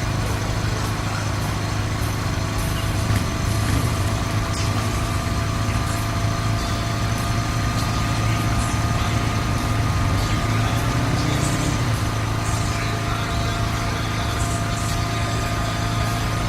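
A vehicle engine running steadily, with an even low drone and a faint high whine held over it.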